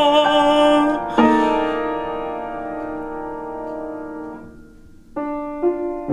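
Piano playing a hymn interlude between sung verses: a chord struck about a second in rings and slowly fades away over about three seconds, then new chords come in near the end.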